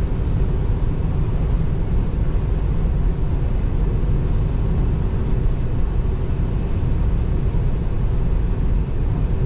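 Steady road noise inside the cabin of a Tesla Model 3 at about 72 mph on a rain-soaked highway: tyres running on wet pavement and rain on the car, an even rush with a deep rumble.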